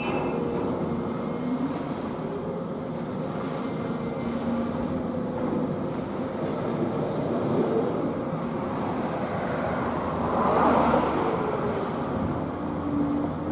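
Dredger's machinery running steadily over water and wind noise, a hum with faint steady tones, swelling into a louder rush about ten seconds in.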